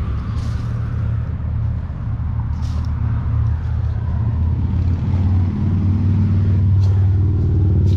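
An engine running steadily at low speed, growing a little louder over the last few seconds.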